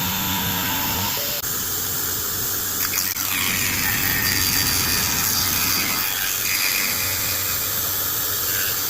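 CNC milling machine's spindle and end mill cutting aluminium: a steady cutting noise with a high whine that shifts in pitch a few times as the tool moves along its path.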